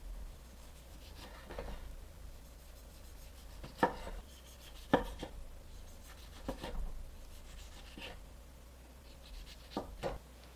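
A kitchen knife cutting food on a cutting board: a handful of separate knocks with quiet between them, the two loudest about four and five seconds in.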